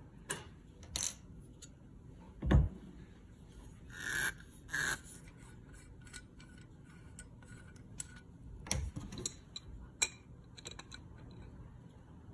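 Small metal faucet parts handled and set down on a rubber work mat while a faucet is taken apart: scattered clicks and light knocks, one heavier thump about two and a half seconds in, and two short scrapes around four seconds in.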